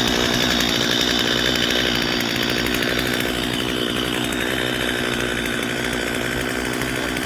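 Chainsaw running steadily, its engine note holding high and even throughout.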